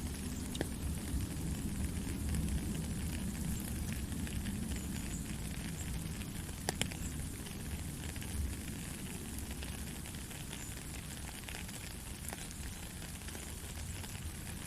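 Steady rain: a dense hiss of small sharp drop ticks over a low rumble, with one sharper tick about seven seconds in.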